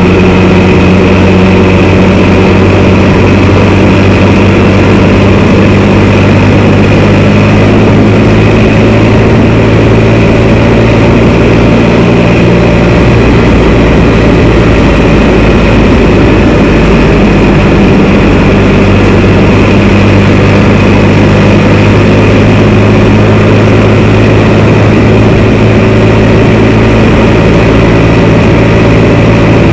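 Can-Am Spyder three-wheeled motorcycle's engine running steadily while riding along the road. The engine note fades for a few seconds about halfway through, then comes back.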